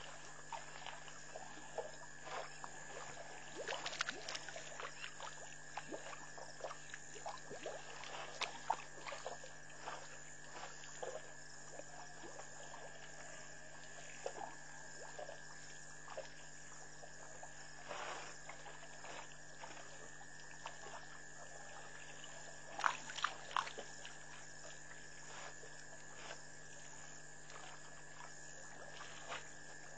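African elephants drinking at a waterhole: water trickling, dripping and splashing as they draw it up with their trunks and pour it into their mouths, in many small irregular splashes, with a louder cluster of splashes a little after two-thirds of the way through. A steady low hum runs underneath.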